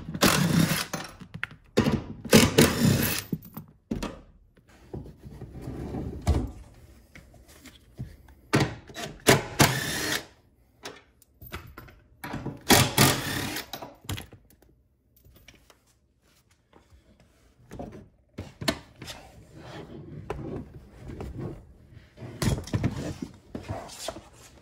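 Cordless drill spinning out seat-rail bolts in four short runs, with knocks and thunks as the car seat is shifted and lifted out.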